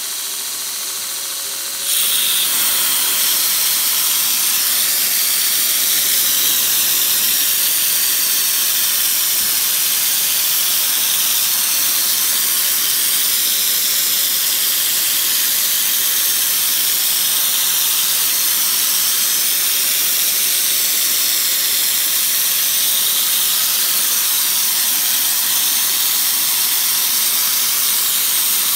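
Belt grinder running. About two seconds in, a loud steady hiss starts and holds: a coolant mister spraying onto the belt while a knife blade is hollow ground against the contact wheel.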